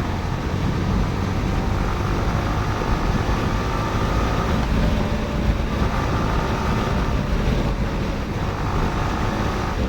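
Yamaha R15 V4's 155 cc single-cylinder engine running at a steady cruise on the move, with wind noise over the microphone.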